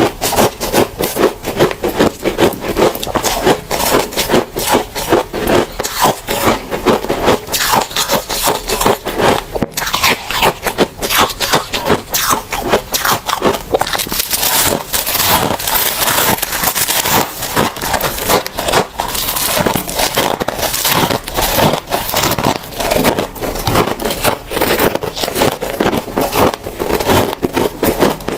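Soft, powdery freezer frost crunching in quick, continuous strokes.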